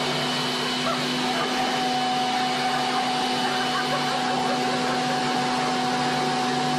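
Corded electric leaf blower running steadily, a rush of air over a constant motor hum, with a higher steady tone joining about a second and a half in.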